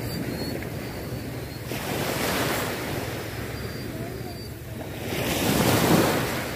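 Small sea waves breaking and washing up the shore, swelling twice, with the second surge the loudest, near the end.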